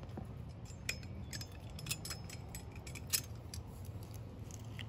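Faint scattered clicks and light metallic taps of metal tongs and a basting brush handling sauced short ribs on aluminum foil, over a steady low background hum.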